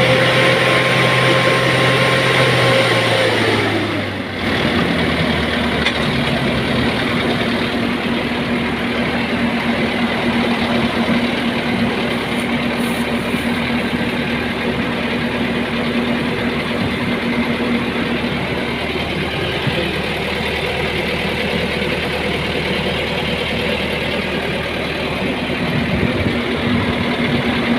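A motor engine running steadily; about four seconds in its pitch drops and it settles at a lower, steady speed.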